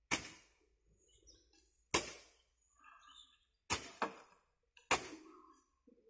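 Metal spades striking and scraping into a heap of wet concrete mix while it is mixed by hand: about five sharp strikes, roughly one every second or two.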